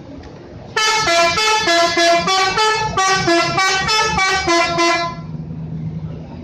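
Telolet musical horn on a Garuda Mas bus playing a quick tune of stepped notes for about four seconds, starting about a second in, then stopping. A low steady hum is left underneath.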